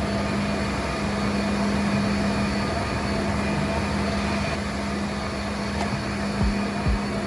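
A cleaning machine's motor running steadily with a constant hum, with a few low thumps near the end.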